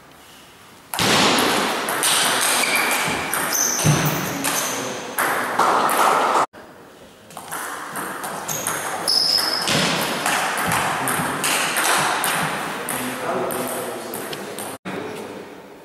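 Table tennis rally: the ball clicking back and forth off the rackets and the table.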